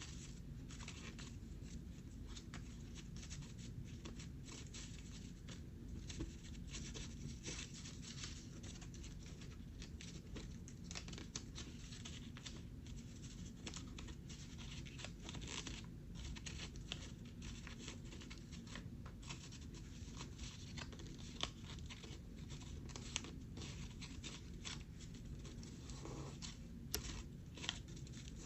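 Sheet of paper being handled, folded and creased by hand: a continuous run of crisp rustles and small crackles, with a few sharper clicks in the last third, over a steady low background hum.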